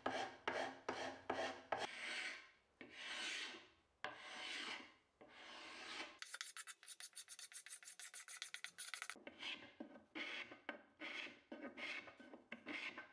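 Carbide paint scraper pulled over oak veneer, rasping off old paint in repeated strokes. First come quick short strokes, then a few longer, slower pulls, then a run of fast short strokes, and brisk strokes again near the end.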